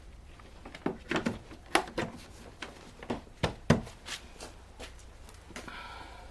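Irregular knocks and clicks of hard parts being handled, about ten of them over a few seconds, with a short scrape near the end over a steady low hum.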